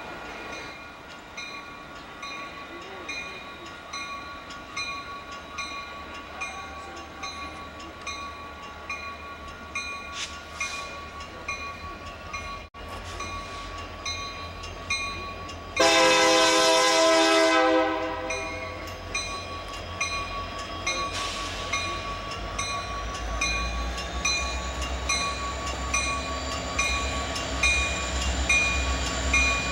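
Railroad crossing bell ringing steadily throughout. About halfway through, a Union Pacific freight's diesel locomotives sound their multi-note air horn for about two seconds, the loudest sound here. Near the end the locomotives' engine rumble grows as the train comes closer.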